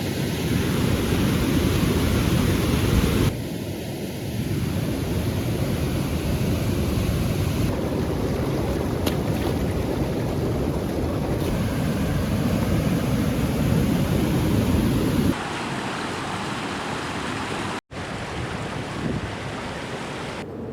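Loud, steady outdoor rushing noise of monsoon water and wind, heaviest in the low end. It changes abruptly about three seconds in and again a few times as the shots change, with a brief break near the end.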